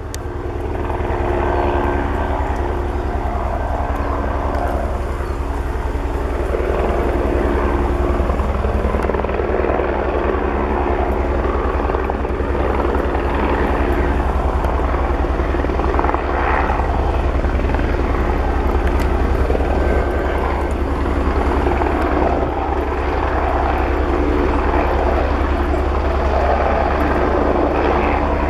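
Eurocopter AS 550 C2 Fennec helicopter in flight carrying an underslung load. Its rotor makes a rapid, steady beat over a steady hum from its single turboshaft engine, growing louder over the first second or two and then holding level.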